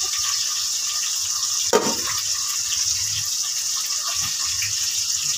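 Dried shrimp frying in hot oil in a pan, a steady sizzling hiss, with a single sharp knock about two seconds in.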